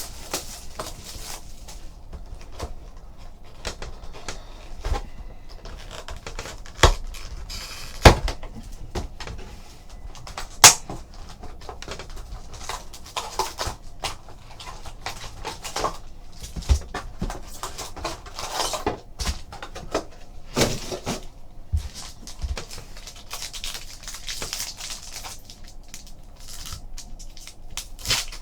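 A sealed trading card box and its pack being opened by hand: plastic wrap and foil tearing and rustling, with cardboard handling clicks and a few sharp knocks.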